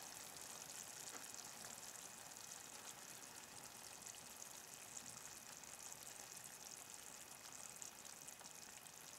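Faint, steady sizzle from a hot frying pan of fish, mushrooms and vegetables, its gas flame just turned off.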